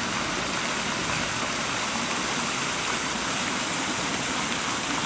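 Jets of a park fountain falling and splashing into its basin, a steady rushing of water.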